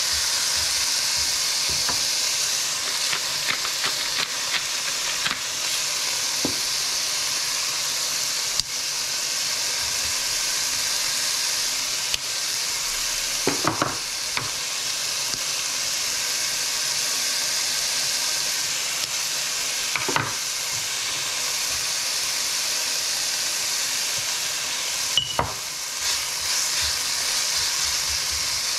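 Ground beef and diced vegetables sizzling steadily in a frying pan while a spatula stirs and scrapes through them, with scattered clicks and a few sharper knocks, one about halfway through.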